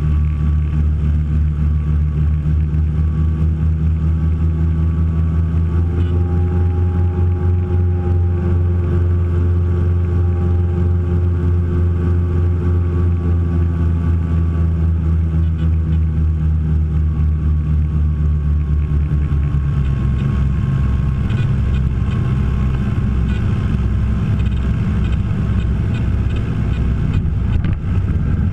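The twin four-cylinder piston engines of a Piper PA-30 Twin Comanche drone steadily, heard from inside the cockpit, with both propellers turning. About two-thirds of the way through the low engine note changes and grows less even as power is eased off for the flare and landing.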